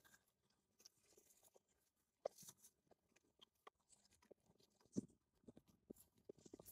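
Near silence, with a few faint, scattered clicks, the clearest about two seconds in and about five seconds in, and a small cluster near the end.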